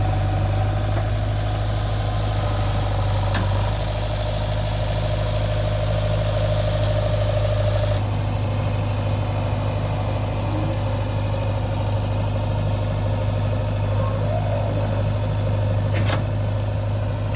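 Heavy diesel engine of a backhoe loader or tractor running steadily at low revs, with a couple of faint clicks.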